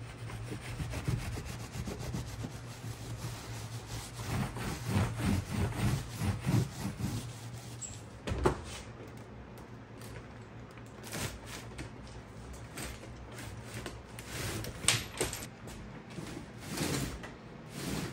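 Paper towel rubbed back and forth over a soldered leaded-glass panel, at about two strokes a second for a stretch in the first half. A few sharp knocks follow from handling the panel on the wooden work table.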